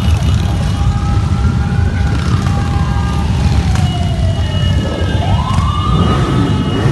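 A stream of motorcycles, mostly Harley-Davidson V-twin cruisers, rumbling past at parade speed. Above the engines a siren wails, its pitch sliding slowly down and then climbing again about five seconds in.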